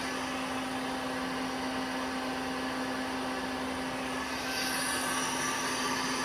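Gang live-tooling spindle of a 2006 Citizen M20V CNC Swiss lathe running steadily at 4,000 RPM: an even motor whine with a constant hum.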